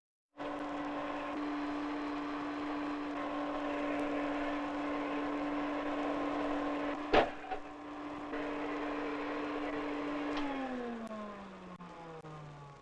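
Canister vacuum cleaner motor running with a steady hum, with a sharp knock about seven seconds in. Over the last two seconds its pitch slides steadily down.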